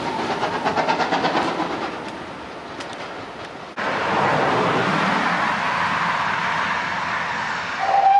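A steam locomotive working hard and drawing away, its rapid exhaust beats fading. A sudden change follows to a standing GWR pannier tank's steady steam hiss, and a locomotive whistle starts near the end.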